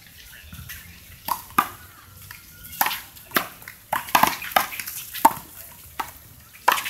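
A small rubber handball being slapped by gloved hands and bouncing off the wall and court during a one-wall handball rally: a string of sharp smacks, some coming in quick pairs.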